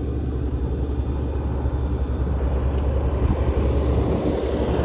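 Steady low background rumble with an even hiss above it and no clear events.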